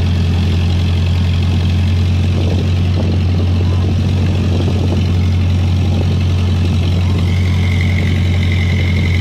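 A boat engine running steadily, giving a deep, even drone.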